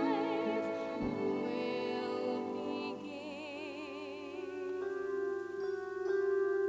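Music from a stage musical: a solo voice sings long held notes with a wide vibrato over accompaniment. The voice fades about four and a half seconds in, and repeated short bell-like struck notes take over.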